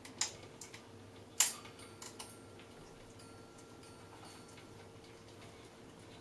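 African grey parrot's beak clicking and knocking on a hanging wooden toy block: a few sharp, irregular clicks, the loudest about a second and a half in, with a faint steady hum beneath.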